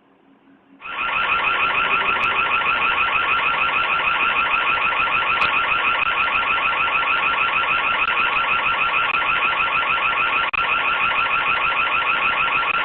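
Ring floodlight camera's built-in siren going off: a loud, rapidly warbling high-pitched alarm tone that starts about a second in and holds steady, set off by the homeowner to drive off intruders.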